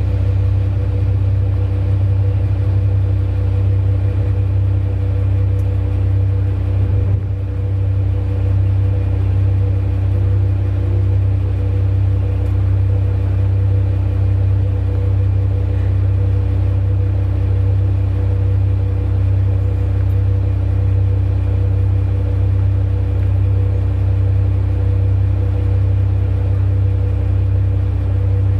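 Large diesel engine of heavy mining equipment running steadily at a constant speed: a deep, unchanging drone.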